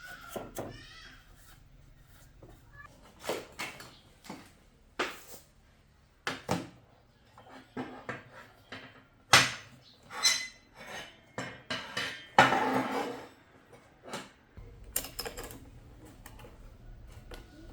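Hand tools and small metal parts clinking and knocking as they are picked up and set down, in irregular single strikes and short clusters, with one longer scraping rattle about two thirds of the way through.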